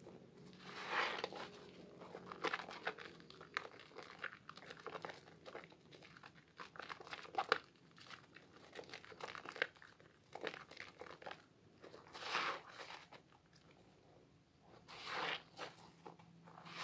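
Hands squeezing and kneading thick soap lather and a soaked sponge: a run of wet squishing and crackling of foam, with louder squelches about a second in, at about twelve seconds and at about fifteen seconds.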